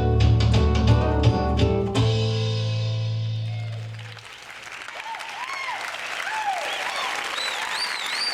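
A live band with guitar and drums plays the last beats of a song, and the final chord rings out and fades for about two seconds. The audience then claps, with a few arching whistles over the applause.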